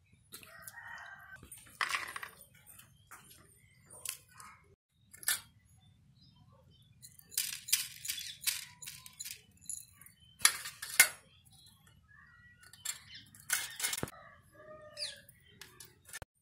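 Whole spices and garlic cloves being dropped onto a stainless-steel plate: coriander seeds poured from a small steel cup patter and rattle on the steel, with clinks of pieces being set down. The rattling comes in several bursts, the loudest a little past the middle.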